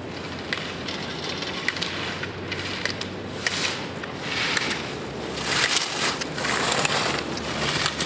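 Wind buffeting an outdoor microphone: a steady rushing hiss that swells into louder gusts from about halfway, with a few sharp clicks in the first three seconds.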